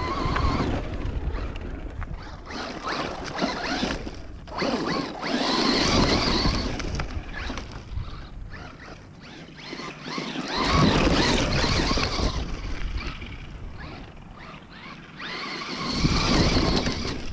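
Traxxas Rustler 4x4 VXL electric RC stadium truck driving hard on dirt: motor whine and tyres spraying dirt, getting loud three times as it runs close by.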